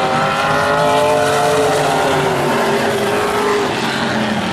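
Several vintage modified stock cars' engines running at race speed as the pack laps the oval, the engine pitch rising and then falling away about three and a half seconds in.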